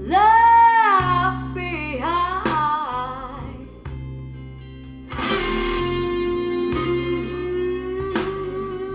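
Blues song with singing and guitar: the words "left behind" are sung with bending notes, then after a short quieter spell a long held note comes in about five seconds in.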